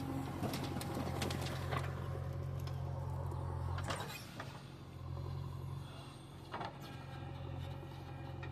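JCB backhoe loader's diesel engine running steadily, with several short scrapes and knocks over it.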